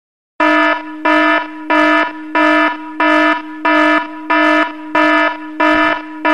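Countdown timer's end alarm: a loud, buzzy alarm tone that starts about half a second in and pulses evenly, about three times every two seconds, signalling that the time is up.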